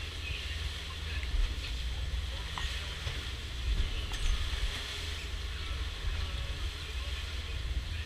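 Wind buffeting the microphone with a deep rumble, over the rushing hiss of the churning wake and waves behind a catamaran sailing fast in big waves, swelling in a few brief surges.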